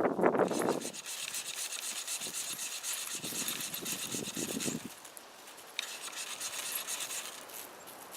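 Stainless steel machete blade scraped repeatedly down a ferrocerium rod to throw sparks, a fast, gritty rasping. It breaks off briefly about five seconds in, then starts again. A louder rustle of handling comes in the first second.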